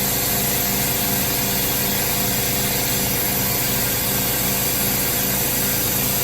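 A steady motor hum with a fast pulsing beat and an even hiss of air, while compressed air is pushed through a leak-down tester into the engine's cylinder.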